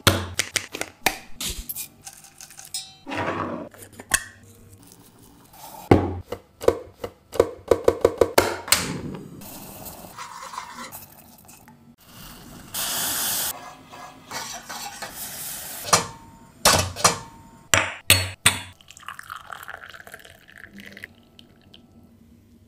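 Kitchen handling sounds while making karak tea: a quick run of taps and knocks as spice containers and utensils are handled and set down on a wooden counter, a second-long steady rush about halfway through, and the clink and stir of a small metal pot. Near the end, softer noise as the tea is poured through a mesh strainer into a glass.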